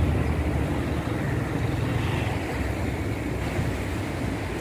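Fast-flowing floodwater of a swollen river rushing below a bridge: a steady rushing noise with a deep low rumble underneath.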